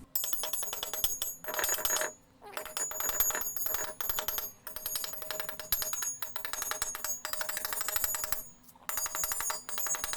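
Rapid metal-on-metal striking on welded steel pipe, a chipping hammer knocking weld slag off the seams, the pipe ringing with each run of blows. The strikes come in quick bursts separated by brief pauses, about two seconds in and again near the end.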